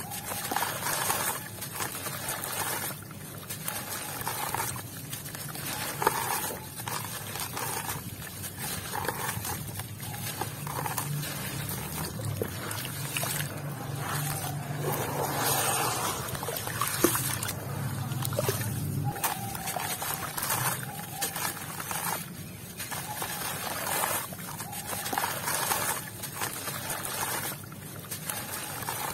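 A gritty red-dirt clump dunked, crumbled and squeezed by hand in a basin of muddy water: water sloshing and trickling with gritty crumbling, and a low drone through the middle while the dissolved mud is worked under water.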